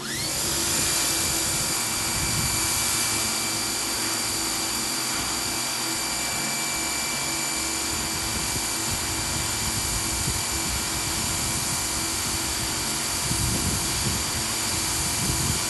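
Pressure washer starting up with a brief rising whine, then running steadily with a high motor whine over the hiss of the high-pressure water jet from a 15-degree nozzle.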